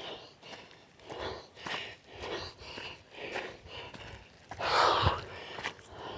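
A person breathing hard while hiking uphill: quick sniffing breaths in a steady run, with one louder burst about five seconds in.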